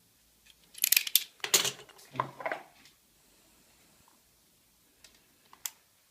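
Small parts being handled: a cluster of sharp clicks, rattles and rustles about a second in, lasting two seconds, then a few light clicks near the end.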